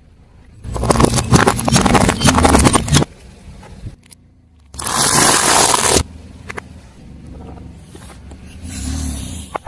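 A car tyre crushing crunchy objects: a dense run of crackling and snapping for about two seconds that stops abruptly. After a pause there is a second, hissing crush about a second long, then low rumbling.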